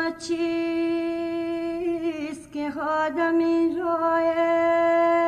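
Unaccompanied solo singing: one voice holding long, steady notes, each ending in a short wavering turn, with brief breaks between phrases about two and three seconds in.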